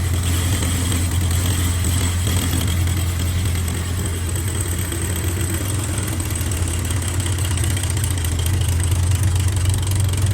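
Old Bedford truck's diesel engine running steadily at idle, a deep even hum.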